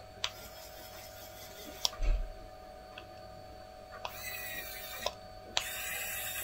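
Homemade cordless screwdriver's N20 gearbox motor run twice in short bursts of about a second each, a high whine, each run starting with a click. Before that, a few light clicks and a knock from handling the tool.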